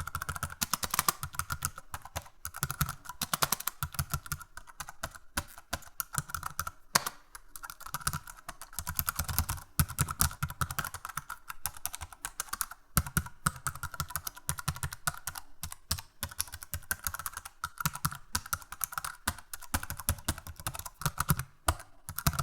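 Typing on a computer keyboard: a fast, irregular run of key clicks with brief pauses now and then.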